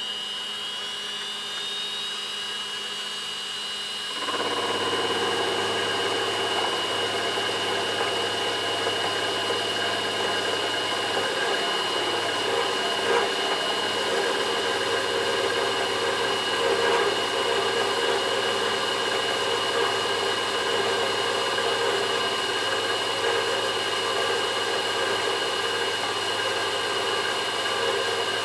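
Milling machine spindle running with a steady high whine; about four seconds in the end mill bites into the steel workpiece and a louder, steady cutting noise joins it as it mills a slot.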